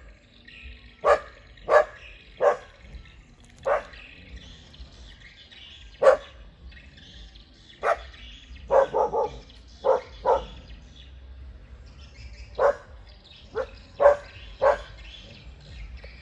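Dogs giving warning barks at strangers: about fifteen sharp barks over the span, some single and some in quick runs of two or three, with irregular gaps between them.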